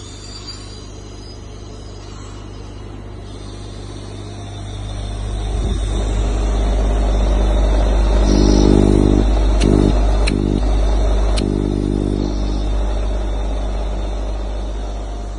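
Becker U4 630 SA-K oil-lubricated rotary vane vacuum pump running under power with a steady hum. It grows louder about a third of the way in. Near the middle, a pitched tone cuts in and out four times, with a few sharp clicks.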